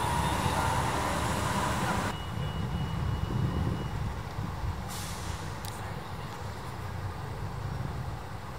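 Steady low rumble of street traffic and idling vehicles. A hiss lies over it for the first two seconds and cuts off suddenly, followed by a faint high tone for about two seconds and a brief click later on.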